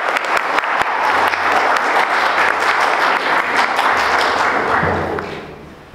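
Congregation applauding, a dense patter of many hands that dies away near the end.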